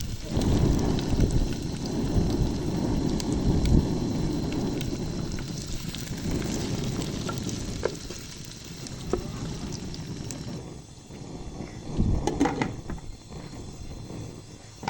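Wind rumbling on the microphone, easing off after about ten seconds, with scattered faint crackles and a brief louder patch near the end.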